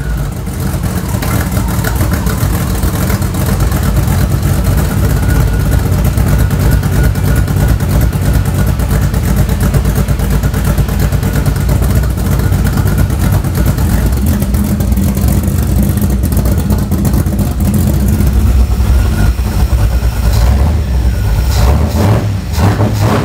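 Carbureted V8 engine of a 1975 Camaro race car running steadily and loudly through headers with clamp-on resonators, its exhaust now muffled from open headers. Near the end the throttle is worked by hand at the four-barrel carburetor and the engine revs.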